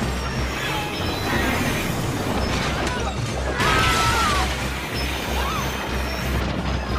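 Film soundtrack of a steam locomotive crashing through a station: continuous rumbling and smashing of wood, glass and debris over a music score, with a louder crash about three and a half seconds in.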